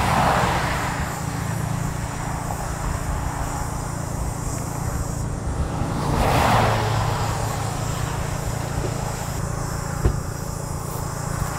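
Two cars passing on the road, their tyre and engine noise swelling and fading, one right at the start and one about six seconds in, over a steady low hum. A single sharp knock about ten seconds in.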